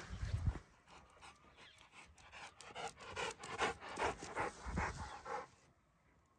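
A dog panting quickly, about three or four breaths a second, for some three seconds starting a couple of seconds in. It is preceded by a brief low rumble at the very start.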